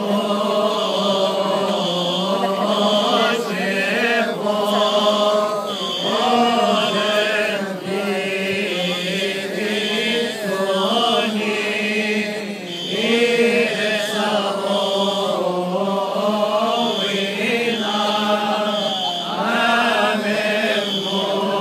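Coptic Orthodox Good Friday hymn chanted in unison by many voices, a slow melody of long held, wavering notes.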